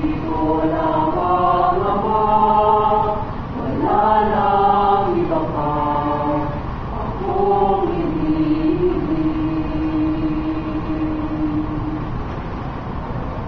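Mixed student choir singing a sung prayer in a few short phrases, closing on one long held note that fades away near the end.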